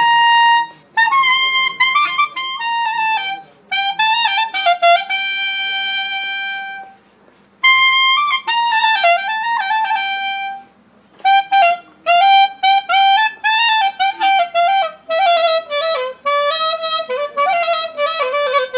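Clarinet playing a solo melody: a long held note, then ornamented phrases broken by short pauses, the line sinking lower near the end.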